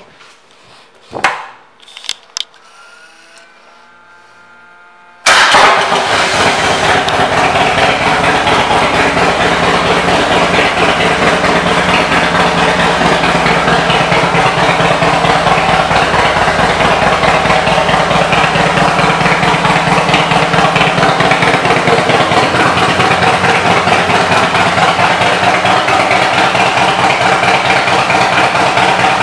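1999 Harley-Davidson Dyna Wide Glide's Twin Cam 88 V-twin with an aftermarket exhaust. After a couple of faint clicks, it starts suddenly about five seconds in, then idles loud and steady.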